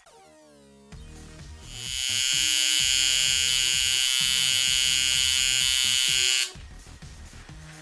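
Tattoo machine buzzing steadily as the needle works ink into the skin of a wrist. It comes in about a second and a half in and cuts off suddenly near the end.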